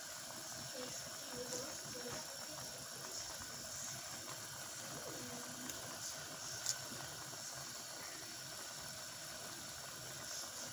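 Adobo sauce with chicken feet and liver simmering in a pan: a steady low bubbling hiss with a few faint small pops.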